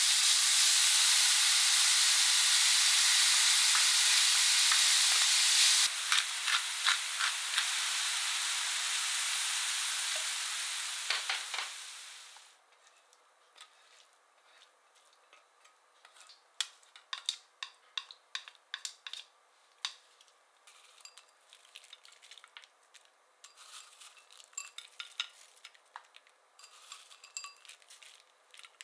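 Food sizzling in a stainless steel frying pan over a gas flame, stirred with a spatula in regular strokes from about six seconds in. The sizzle fades out about twelve seconds in, followed by light scrapes and clinks as the cooked mince is scraped from the pan into a glass baking dish.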